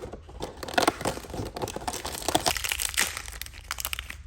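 Toy packaging being torn open and handled: a run of irregular crinkling crackles and rips, thinning out near the end.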